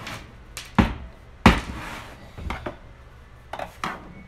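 A series of sharp knocks and clicks from hands and small screws on a TV's plastic back cover and a wooden floor, as back-panel screws are taken out and set down. The loudest knock comes about one and a half seconds in.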